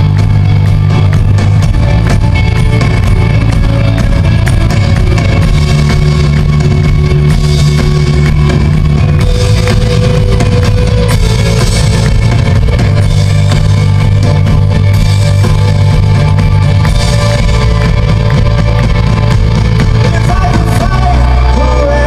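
Rock band playing live and loud, with guitar to the fore over strong, sustained bass notes.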